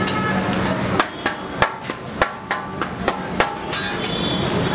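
Sharp knocks of kitchen utensils, about eight irregular strikes in two and a half seconds, over a steady background hum.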